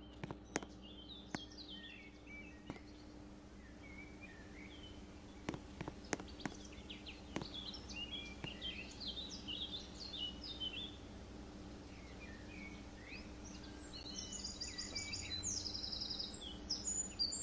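Songbirds chirping and twittering, busiest near the end, over a steady low hum, with a few sharp clicks in the first half.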